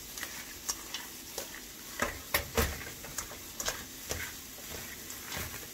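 Gloved hands mixing seasoned raw shrimp in a stainless steel bowl: irregular wet clicks and taps of shrimp and fingers against the metal, several a second.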